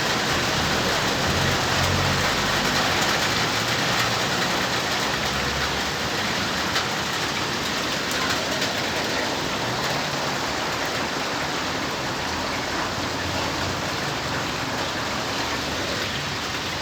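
Steady rain falling, a dense even hiss, with a faint low rumble coming and going underneath.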